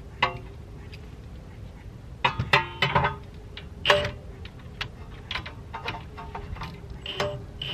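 Metal clinks and taps from bolts and a hand tool being worked on a car's rear suspension at the bare hub. Several sharp clinks ring briefly, bunched about two to three seconds in and again near four seconds, with lighter ticks after.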